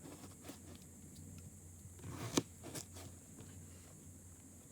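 Faint clicks and light knocks of food-preparation handling, with two sharper clicks about two and a half seconds in.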